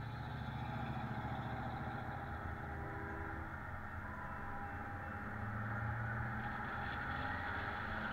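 A car being driven: a steady low engine hum under road and wind noise, which grows louder from about six seconds in.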